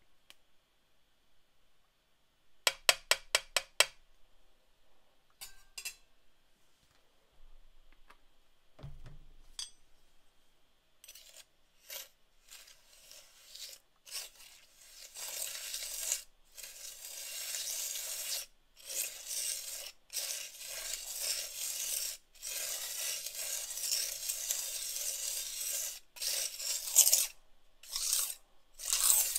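Steel palette knife scraping across a glass slab as it mixes coarse azurite pigment into gum arabic binder, in long scraping strokes with short breaks, starting about ten seconds in. Earlier comes a quick run of about seven light clicks.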